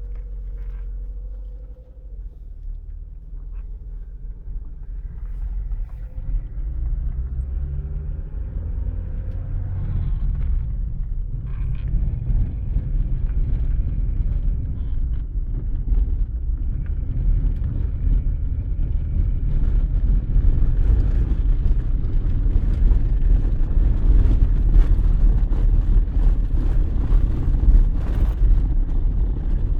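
ZAZ Slavuta driving, its engine and road rumble growing louder over the first twenty seconds as the car gathers speed, with scattered knocks. The owner blames the knocking on the left front end, where it is bad enough to jerk the steering wheel out of his hands.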